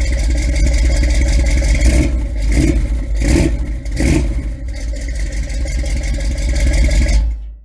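A car engine running with a deep, steady rumble, revved in a few quick surges around the middle, then dying away near the end.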